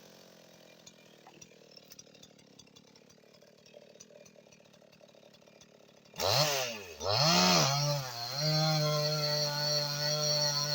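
Near quiet with faint ticks, then about six seconds in a two-stroke chainsaw fires up, its engine revving up and dropping back twice before settling into a steady idle.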